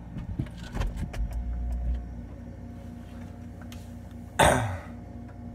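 Camera handling noise as the phone is set in place: a run of clicks and knocks with low rumble in the first two seconds, then a loud, short rush of noise about four and a half seconds in, over a steady low hum.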